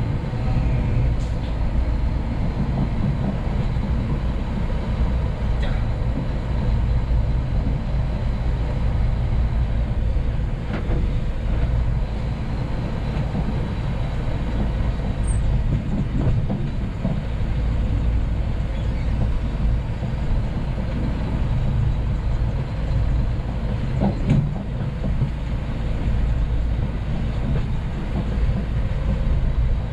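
Scania P380 dump truck on the move: a steady low diesel rumble mixed with road and rattle noise, with a few brief knocks, the clearest about four-fifths of the way through.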